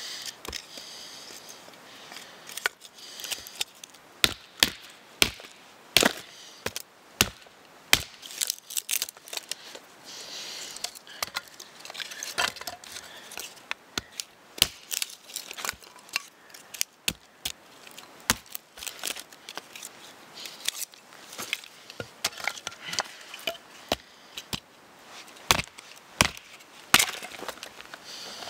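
A fixed-blade knife struck down into thin split sticks resting on a log to split them into kindling: sharp, irregular wooden knocks, one or two a second, with the crackle of the wood splitting apart between some of them.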